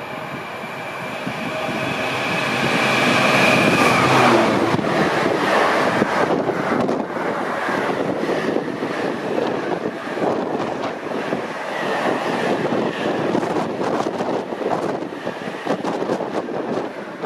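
GBRF Class 66 diesel freight locomotive approaching and passing at speed, its two-stroke EMD diesel engine growing louder until it goes by about four seconds in. Then comes the steady noise of loaded intermodal container wagons rolling past, with repeated clicks of wheels over rail joints.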